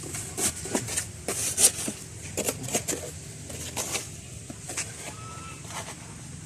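Irregular clicks and knocks, several a second at first, thinning out after about four seconds, over a steady low hum.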